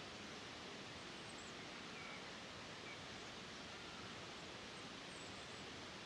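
Steady, even outdoor rushing hiss of a natural ambience bed, with a few faint, brief high bird chirps over it.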